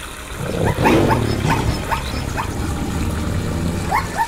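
An animal's high yipping calls: a run of short, rising yips, a few a second, pausing before two more near the end, over a low rumble.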